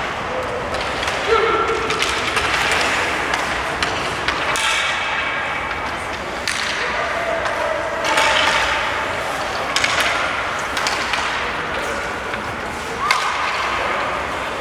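Ice hockey game sound in an arena: sharp clacks and knocks of sticks and puck scattered through a steady crowd hubbub, with a few brief shouts.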